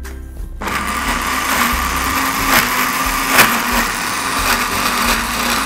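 Countertop blender switched on about half a second in, its motor running steadily as it purées a thick mix of avocado, cocoa, dark chocolate and coconut milk.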